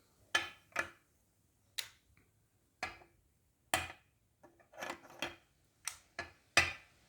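Magnetic building sticks snapping onto the set's balls and onto each other: about ten sharp clicks, unevenly spaced.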